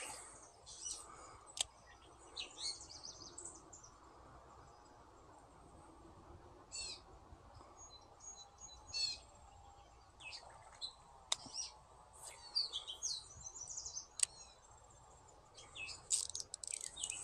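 Songbirds chirping in the trees, faint: short high calls and little trills scattered throughout, with a few sharp ticks.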